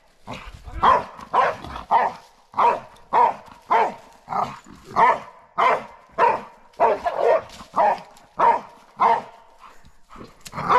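Pit bull-type dog barking repeatedly at a wild boar, a steady run of short barks about two a second, with a brief pause near the end.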